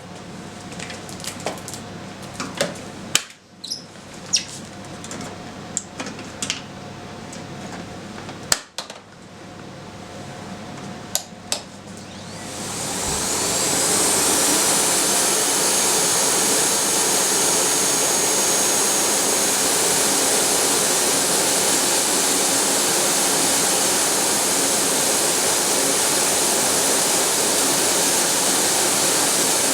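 Several sharp clicks and knocks over the first twelve seconds or so. Then a Philips vacuum cleaner switches on: its motor whine rises as it spins up, and it settles into a loud, steady running noise.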